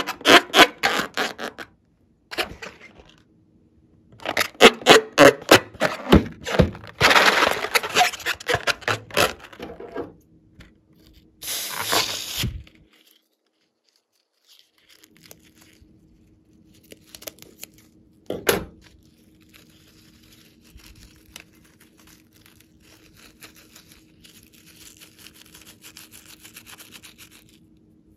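Slime-filled rubber balloon being squeezed and handled: rapid squeaks and crackles in dense runs through the first half. About halfway through comes a single sharp scissor snip, followed by faint crackling.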